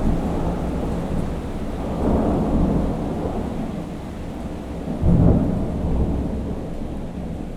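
Thunder rumbling over steady heavy rain. The rumble swells about two seconds in and again, more sharply, about five seconds in, then slowly dies away.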